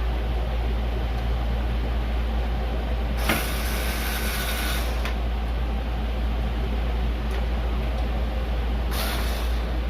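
A steady low mechanical hum, with two bursts of hissing over it: the first about three seconds in, lasting nearly two seconds, the second near the end.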